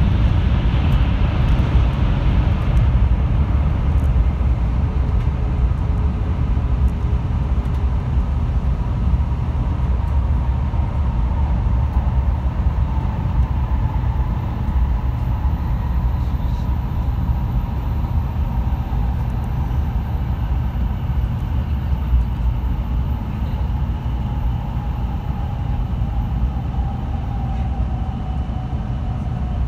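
700 Series Rail Star Shinkansen train running at speed through a tunnel, heard from inside the passenger cabin: a steady, heavy low rumble of wheels and air. A faint whine slowly falls in pitch through the second half.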